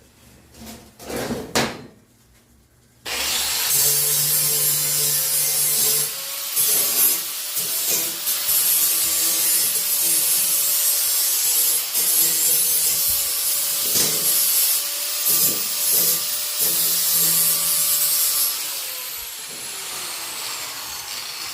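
Angle grinder with a flap disc switched on about three seconds in, grinding the sharp cut edges of steel angle iron smooth, its sound swelling and dipping as the disc bites the metal. Near the end it is switched off and winds down with a falling whine; a few knocks of handling the metal come before it starts.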